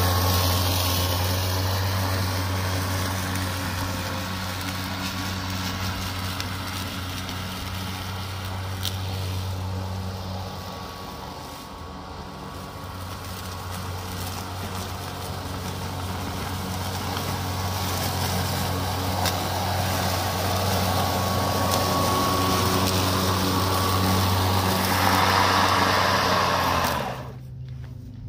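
Greenworks Pro 60-volt brushless cordless lawn mower cutting grass in bagging mode: a steady motor-and-blade hum that fades as the mower moves away, grows louder as it comes back, then cuts off about a second before the end.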